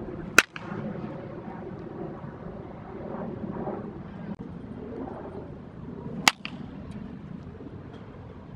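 Baseball bat hitting pitched balls in batting practice: two sharp cracks, about six seconds apart.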